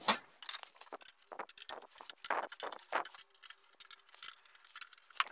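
Locking screws on a Trend VARIJIG aluminium routing frame being tightened with a screwdriver: a scatter of small metallic clicks and ticks.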